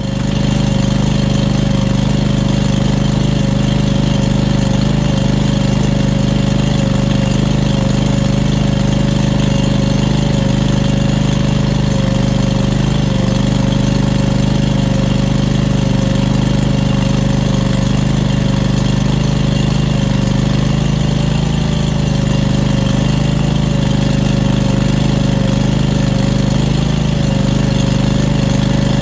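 An engine comes in right at the start and then runs at a steady, constant speed.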